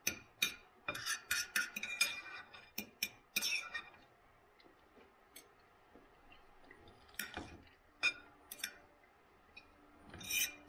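A knife and fork clinking and scraping against a dinner plate while food is cut: a busy run of clicks in the first four seconds, then only occasional single clinks.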